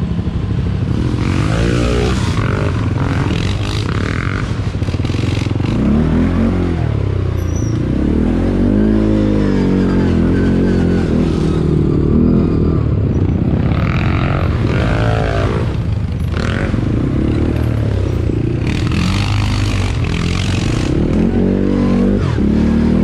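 ATV engine being ridden, revving up and down again and again as the throttle opens and closes, with bursts of rough scraping and rattling noise coming and going over it.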